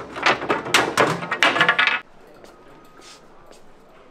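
A person talking for about two seconds, then a quieter stretch of faint hardware-store background noise.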